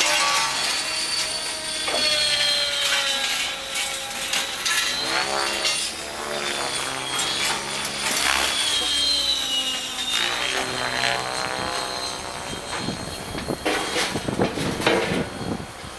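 Electric Rave ENV RC helicopter flying overhead. Its motor and drivetrain whine rises and falls in pitch as it manoeuvres, over a steady rush of the rotor.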